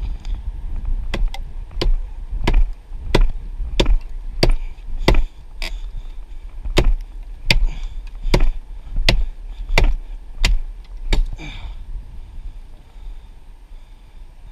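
Hatchet chopping into a limb of a fallen ponderosa pine: a steady run of about fifteen sharp strikes, roughly one every two-thirds of a second, that stops about eleven seconds in.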